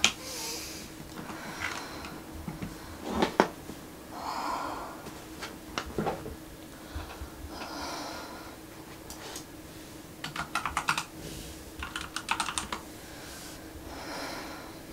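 Typing on a computer keyboard: a few single key clicks, then two quick runs of rapid keystrokes about two thirds of the way through, with soft breaths in the gaps and a faint steady hum.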